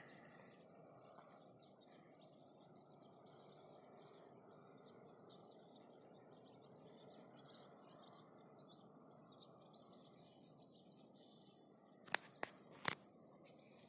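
Faint steady background hiss with scattered short, high bird chirps. Near the end, three sharp clicks in quick succession.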